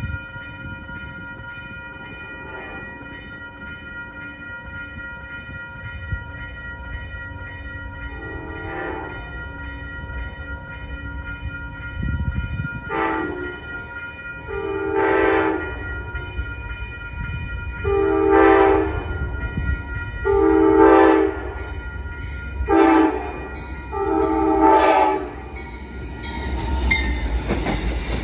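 Amtrak train's locomotive horn sounding a string of blasts for a grade crossing, mostly long with a couple of short ones, over the crossing's warning bell ringing steadily. Near the end the train passes close by with the rumble and clatter of its wheels on the rails.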